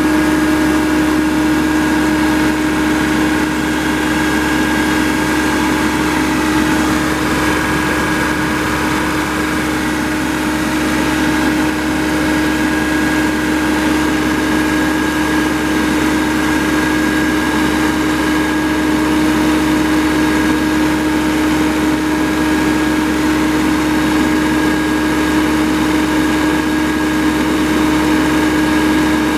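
The Yanmar 3TNV84T turbocharged three-cylinder diesel engine of a 2010 John Deere 7500 E-Cut mower running steadily at a constant speed.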